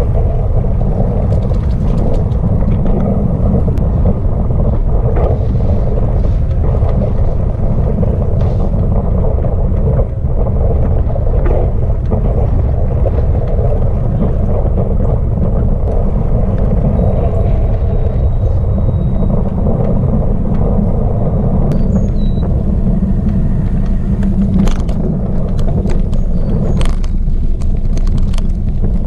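Wind buffeting the microphone, a steady heavy rumble, with a few sharp clicks near the end.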